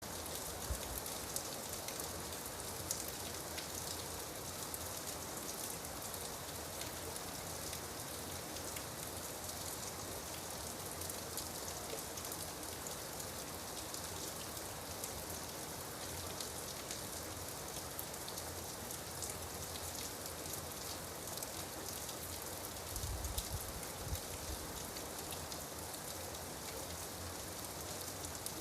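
Steady rain falling, with many small drop patters over an even hiss. A brief low rumble comes about three quarters of the way through.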